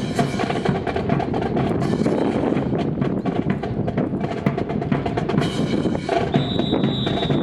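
Marching percussion playing a fast drum cadence, mixed with sharp wooden clacks of Type 64 rifles being slapped and handled in a rifle drill. A high steady tone sounds for about a second near the end.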